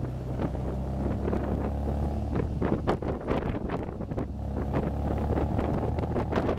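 MGA's four-cylinder engine running under way in the open cockpit, easing briefly about halfway through, with wind buffeting the microphone.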